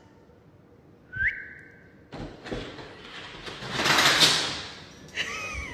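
Front door being opened from outside by a dog: a short high squeak that rises and holds about a second in, then a click about two seconds in and a swelling rush of noise as the door works open, fading near the end with another brief squeak.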